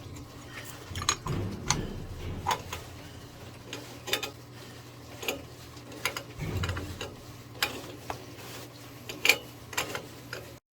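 Irregular metallic clicks and knocks of a sprinkler alarm valve's pressure (alarm) switch being turned loose on its threaded pipe fitting, over a faint steady low hum.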